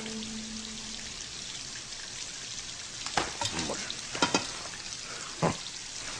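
Steady hiss of water spraying, with a few short sharp sounds about three, four and five and a half seconds in.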